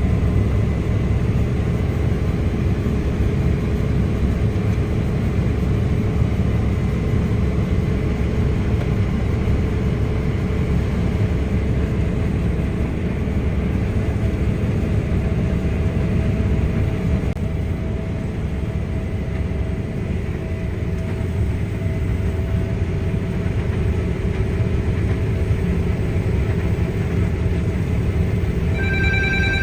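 Case IH Axial-Flow 9250 combine harvester running steadily while harvesting wheat: a continuous low machine drone with a steady whine over it. Near the end a ringing tone like a phone starts.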